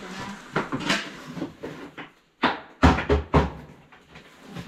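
Cardboard box scraping and knocking as it is pulled down off the top of a wooden cabinet, with a cluster of loud, heavy thumps a little past halfway.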